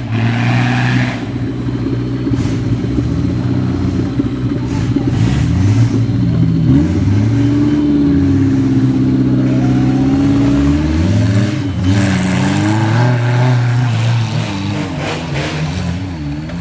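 Off-road 4x4's engine revving up and down again and again as it is driven over rough ground, with a few knocks and clatters.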